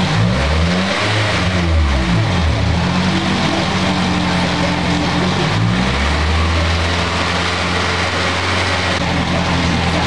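Seventh-generation Toyota Celica's 1.8-litre four-cylinder engine running. It is revved up and back down once in the first two seconds or so, then held at a steady raised speed, and drops back to a lower idle around six seconds in. The engine has been logging a P0354 code (ignition coil, cylinder four) and is running with its coil packs freshly swapped to trace the fault.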